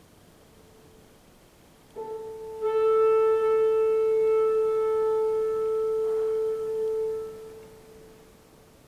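A woodwind instrument sounding one long, steady held note: it starts softly about two seconds in, fills out a moment later, holds level for about five seconds and then fades away.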